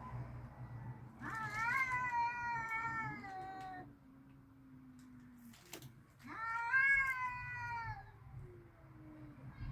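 Domestic cats caterwauling in a standoff before a fight: two long, wavering yowls, each two to three seconds and dropping in pitch at the end, with a lower, fainter drawn-out call after each.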